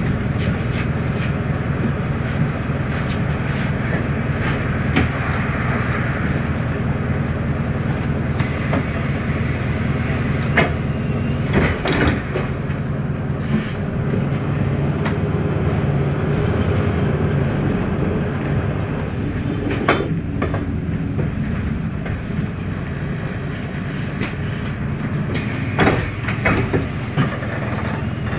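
A VDL Citea 12 m city bus driving between stops, heard from inside: a steady low drivetrain rumble with scattered short knocks and rattles.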